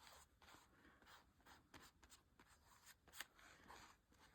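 Near silence, with faint scratching and small taps of hand work on paper, and one slightly louder tick about three seconds in.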